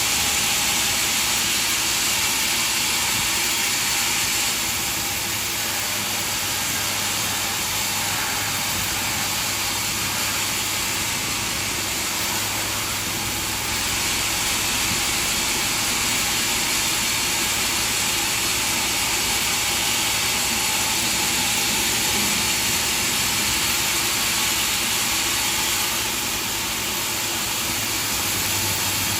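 Sawmill machinery running steadily: a continuous mechanical drone with a strong hiss, shifting slightly in level a few times.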